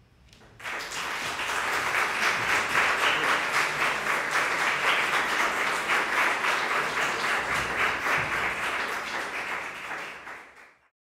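Audience applauding, starting suddenly about half a second in as the song ends, then fading out near the end.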